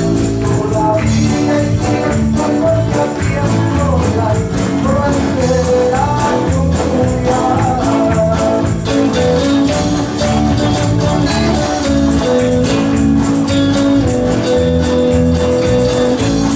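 Live band playing an upbeat song: drum kit, electric guitars, electric bass and keyboard, with rapid jingling percussion on the beat.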